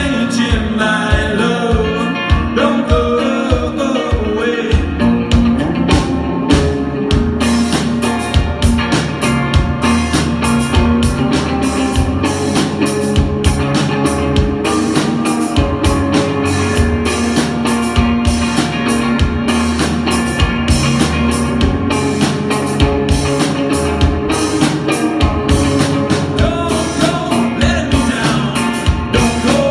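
Alternative rock band playing live, with electric guitars, bass and drums and a singer's voice in places.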